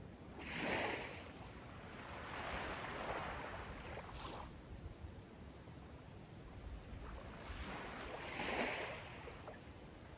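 Small waves lapping gently onto a sandy shore in calm water: soft washes that swell and fade, clearest about a second in and again near the end.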